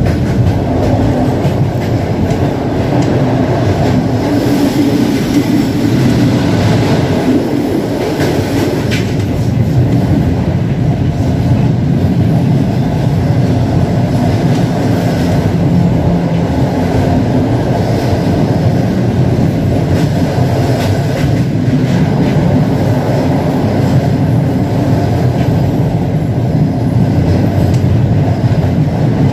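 Regional passenger train running along the track, heard from inside the carriage: a steady rumble of wheels on rails.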